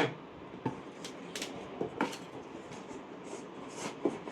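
Parts of an electric kettle being handled: a few scattered light clicks and knocks of plastic and metal pieces, spaced about half a second to two seconds apart.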